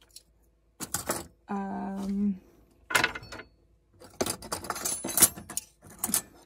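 Metal cutlery and camping utensils clinking and jangling together as they are rummaged through and picked up, in several short bursts.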